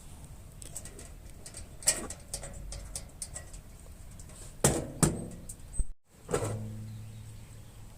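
Several knocks and clanks of thin sheet metal being handled and struck, a couple of them ringing on briefly with a low tone.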